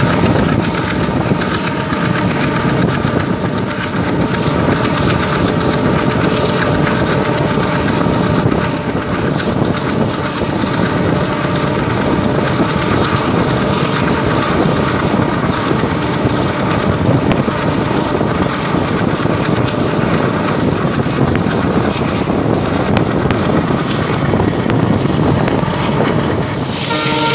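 Diesel-hauled passenger train with ICF coaches running steadily at speed, heard from the open side of a moving coach: a continuous rumble of wheels on rail with rushing wind noise.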